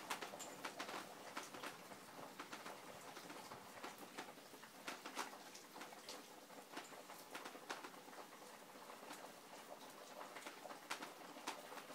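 Heavy rain falling: many separate drops pattering irregularly over a steady hiss.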